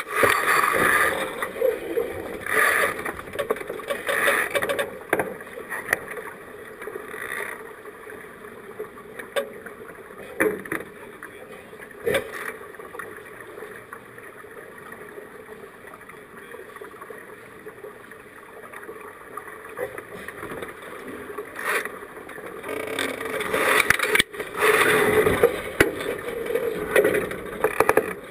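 Water rushing and splashing along the hull of a racing keelboat under sail, louder near the start and toward the end. A few sharp knocks come through over it.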